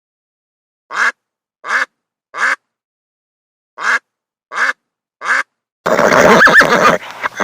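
Piglets' short squeaky oinks in two groups of three, evenly spaced. About six seconds in, a horse gives a loud neigh with a wavering whinny that trails off.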